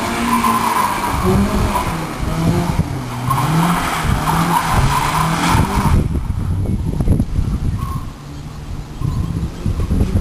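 Honda Civic Si rally car at speed: the engine revs up and drops back again and again through the gears, with tyres skidding on the loose surface. About six seconds in there is a stretch of clattering knocks, and the engine eases briefly near the end before picking up again.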